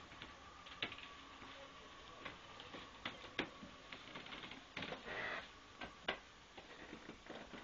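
Scattered light clicks and knocks at an irregular pace, with a short scraping rustle about five seconds in.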